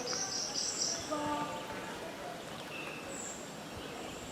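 Wild songbirds singing: quick high trills in the first second and a single high whistled note about three seconds in, over a steady outdoor hiss. A brief low vocal sound comes about a second in.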